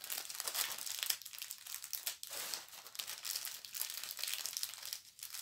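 Plastic packaging of a diamond painting kit crinkling and rustling as it is handled, in irregular crackles.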